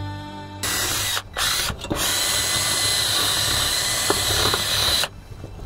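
Cordless drill spinning a wire brush wheel against a red painted cast gumball-machine body, scuffing the gloss off the finish to ready it for paint. The drill starts about half a second in, pauses twice briefly early on, then runs steadily and stops sharply near the end.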